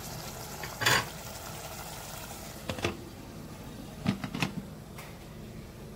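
A glass pot lid knocking and clinking against a metal cooking pot: a loud knock about a second in, another near three seconds and two quick ones around four seconds, over a faint steady simmer of the covered beef curry.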